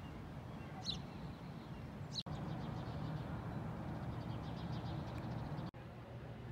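Outdoor ambience: a steady low rumble with a few short, high bird chirps about one and two seconds in, and faint chirping after. The sound drops out abruptly twice.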